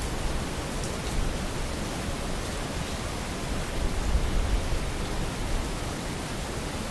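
A steady hiss of night-time background noise, with an uneven low rumble that swells about four seconds in and a few faint ticks.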